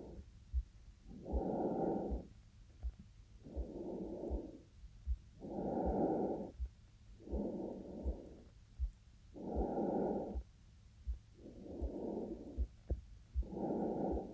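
A woman's breathing, slow in-and-out breaths of about a second each following one another evenly. Her heartbeat thumps low and steady underneath.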